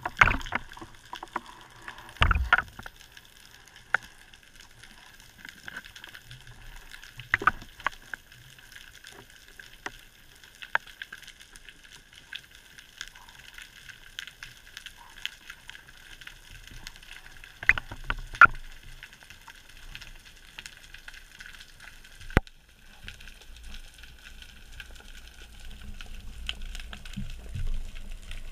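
Underwater sound picked up through a camera housing on a spearfishing dive: a steady hiss with scattered sharp clicks and knocks from the speargun and gear, the loudest around 2 s and 18 s in. A low rumble of moving water builds in the last few seconds.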